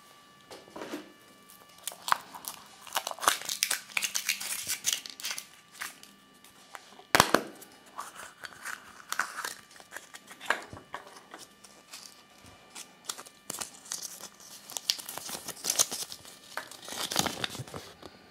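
Kinder Surprise egg unwrapped and opened by hand: foil wrapper crinkling and tearing in quick crackly bursts, a sharp snap about seven seconds in, then paper rustling near the end as the toy's leaflet is unfolded.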